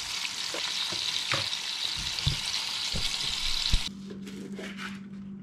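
Breaded strips of grouse and a dove nugget frying in hot oil in a skillet: a dense steady sizzle with scattered pops, which stops suddenly about four seconds in. After it, a low steady hum and a few faint taps of a knife on a plate.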